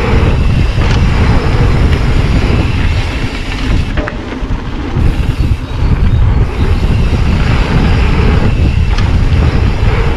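Wind buffeting a GoPro's microphone and the rumble of mountain-bike tyres on a dirt flow trail during a fast descent, with a few sharp rattles from the bike.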